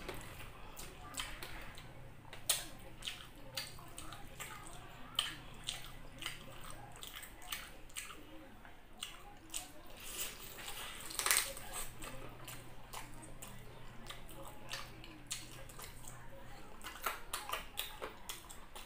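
Close-up chewing and wet lip-smacking of someone eating saucy chicken and rice by hand, with irregular sharp smacks and clicks; the loudest smack comes about eleven seconds in. A faint low hum comes and goes underneath.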